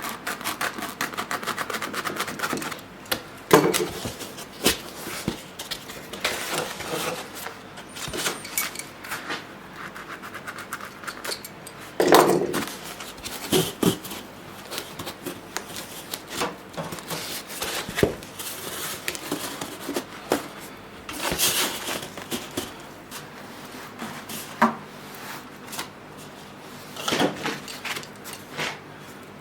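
Irregular clicks, knocks and clattering of tools and parts being handled, with a few sharper knocks standing out.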